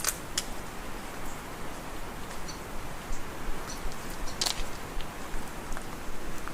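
Steady hiss with scattered sharp clicks and ticks. The loudest click comes right at the start and another about four and a half seconds in.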